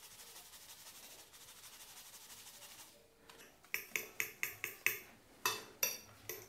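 A spoon clicking and scraping against a glass plate as egg, sugar and corn flour are stirred together: about nine quick strikes starting a little past halfway, with a short pause among them.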